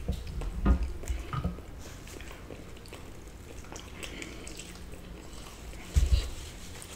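Quiet eating sounds of fried chicken: faint chewing and small crackles as a wing is pulled apart. There is a low thump just under a second in and another about six seconds in.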